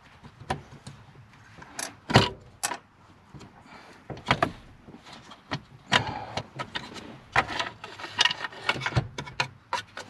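Mitsubishi Evo's factory shifter assembly, a plastic housing with a metal shift lever, knocking and clattering in irregular clicks as it is worked loose and lifted out of the console tunnel; the loudest knock comes about two seconds in.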